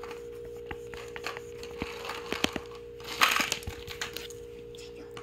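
Wooden chopsticks stirring and scraping foamed dalgona toffee in a small metal ladle, with many light clicks and taps and a louder scrape about three seconds in. A steady hum runs underneath.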